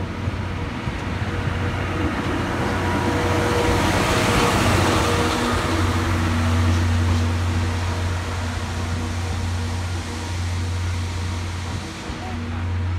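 Passenger coaches of a steam-hauled train rolling past a station platform as the train pulls out: a steady low hum and rumble, with a rushing swell of wheel and running noise a few seconds in.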